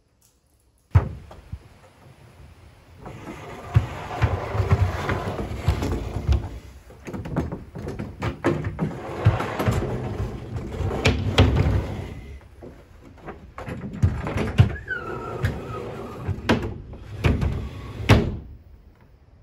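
Heavy wooden sliding shutters (amado) being pushed along their wooden grooves: a loud rumbling, scraping slide, repeated in several runs, with sharp wooden knocks as panels meet or hit their stops and one short squeak about three-quarters of the way through.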